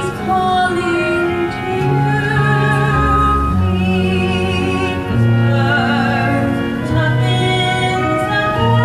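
Stage musical song: a voice singing held notes with vibrato over orchestral accompaniment with sustained low notes.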